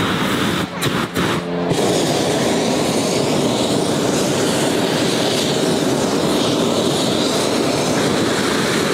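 Hot air balloon's propane burner firing: a steady, loud rushing blast that starts about two seconds in and holds, heating the envelope during inflation. Before it, a brief steady hum.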